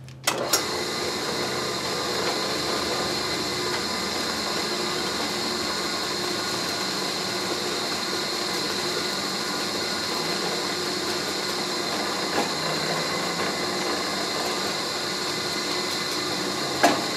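Delta drill press starting up with a click just after the start, then running steadily while a small center drill spots a punch mark in a brass part. A sharp click near the end.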